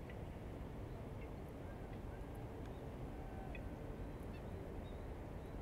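Riverside morning ambience: a steady low background wash with faint, scattered short bird calls.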